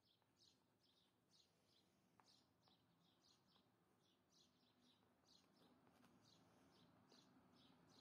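Very faint scratching of a ballpoint pen writing on cardboard: short high strokes, a couple each second.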